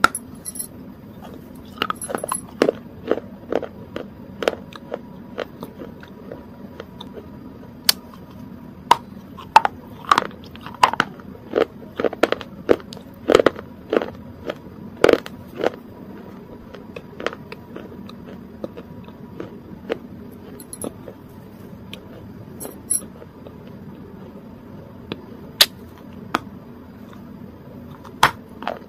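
Close-miked eating sounds with a spoon at the mouth: irregular sharp clicks, crunches and chewing noises, thickest from about eight to sixteen seconds in, over a faint steady hum.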